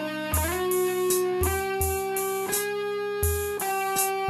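Instrumental rock music: an electric guitar plays held lead notes, bending one up in pitch about half a second in, over a steady beat of low thumps and hissy hits.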